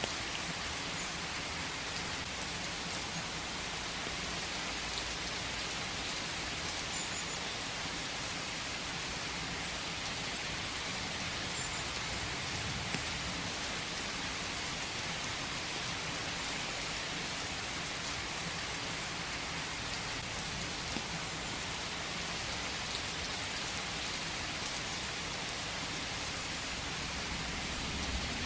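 Steady rain falling in a forest: an even hiss with a few sharper drop ticks scattered through it.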